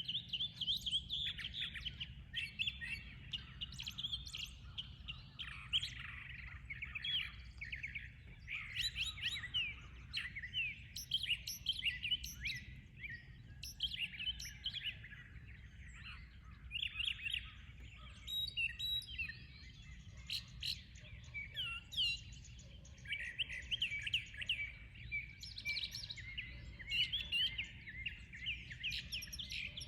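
Several songbirds singing and chirping at once: a dense, continuous chorus of quick high trills and chirps, over a faint low steady hum.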